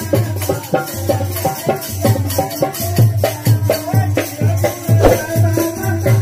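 Devotional bhajan music played loud over PA speaker cabinets, with a steady deep beat, regular percussion strokes and a melody line over it.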